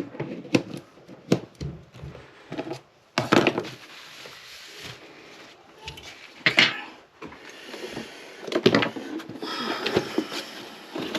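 Scattered clicks, knocks and short rustles of metal fan parts being handled and set down.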